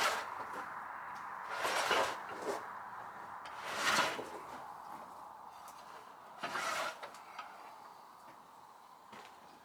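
Old timber from a sawmill carriage scraping as it is dragged: three short scrapes about two seconds apart.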